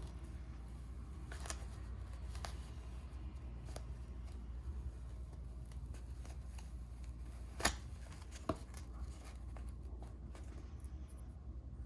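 Hands handling packaging and a watch: a few light scattered clicks and taps, the sharpest about two-thirds of the way through, over a steady low hum.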